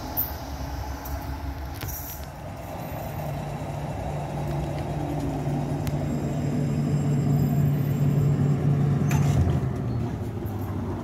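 Electric tram pulling in alongside the platform and slowing to a stop: a steady low motor hum that grows louder, with a falling whine as it brakes. A click about nine seconds in, after which the hum drops away.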